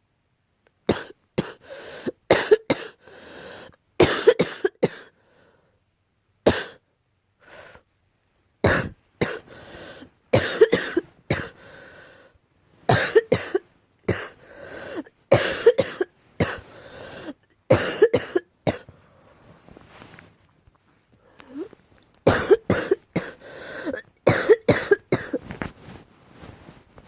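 Harsh barking coughs in repeated fits of several quick coughs each, with short pauses between fits; an allergic cough, which the uploader puts down to a cat allergy.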